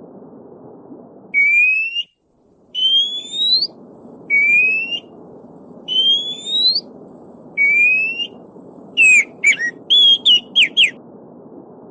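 A songbird singing clear rising whistled notes, five of them about a second and a half apart, then a quick run of sharp down-slurred notes near the end. Under it runs the steady rush of a stream, which cuts out briefly about two seconds in.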